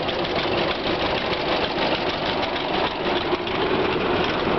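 Vintage farm tractor engine idling, with a steady, rapid, even beat.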